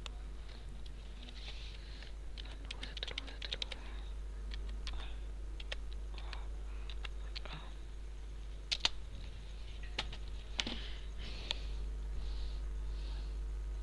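Typing on a computer keyboard: irregular runs of keystrokes, densest a few seconds in, then a few louder single clicks later on, over a steady low electrical hum.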